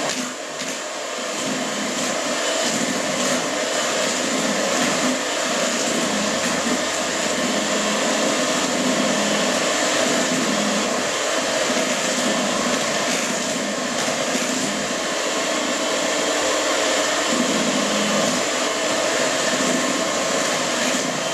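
Electric mixer running steadily at speed, beating chocolate sponge batter: a continuous motor drone with a high whine.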